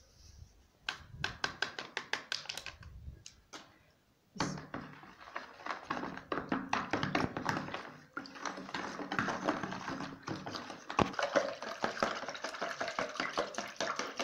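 Wire whisk beating a thin liquid mixture of milk, oil, egg and yeast in a plastic bowl, clicking quickly against the bowl's side: short spurts of taps at first, then steady rapid whisking from about four seconds in, to dissolve the yeast.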